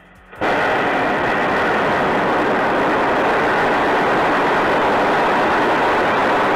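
Raptor rocket engines of SpaceX's Super Heavy Booster 7 firing in a static fire test on the launch mount. The noise starts abruptly about half a second in and then holds steady and loud.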